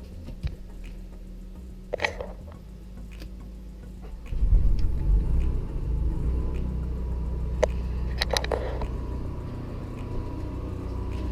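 A motorhome's generator starts up about four seconds in and settles into a steady low running rumble. A few sharp clicks and knocks come before and during it.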